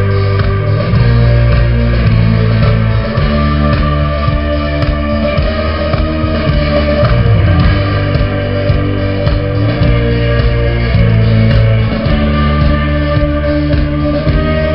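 Rock band playing loudly, with long held bass notes that change every second or two and guitar over them.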